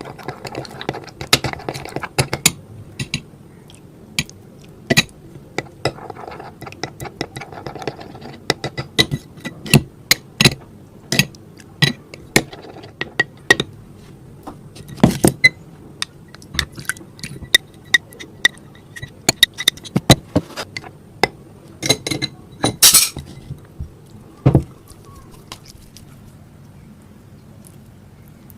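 A utensil clinking and scraping against a dish, many irregular sharp knocks while the toothpaste slime mixture is stirred, stopping a few seconds before the end.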